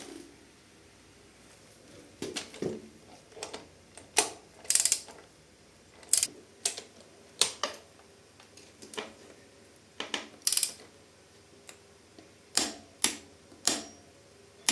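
Irregular metallic clicks and clinks of hand tools and parts during work on a dirt bike's drive chain and engine sprocket, some strikes ringing briefly, in uneven clusters.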